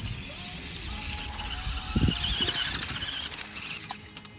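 Remote-controlled Lego Technic car driving past on concrete: its electric drive motor and plastic gears whir over the hiss of the tyres. It is loudest about two seconds in as it passes close by, then fades as it drives away.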